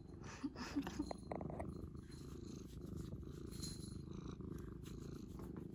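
A cat purring steadily right at the microphone, a continuous low rumble, with a few light taps and rustles in the first couple of seconds.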